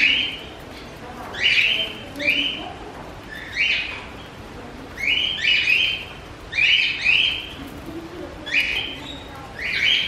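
Small cage birds giving short, sharp chirping calls, about one a second at an uneven pace, with a dove's faint low cooing underneath.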